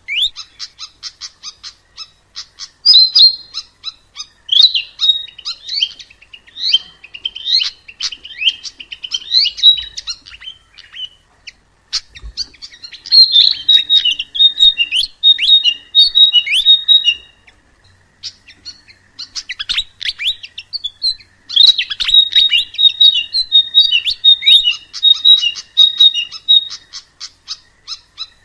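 Sikatan emas, a small Ficedula flycatcher, singing: fast runs of high, sharp chirps and trills in phrases several seconds long, with two short lulls about halfway through.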